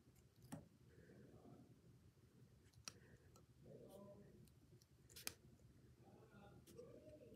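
Faint snips of scissors cutting fingerboard grip tape: a few sharp, sparse clicks about two and a half seconds apart, the loudest about five seconds in.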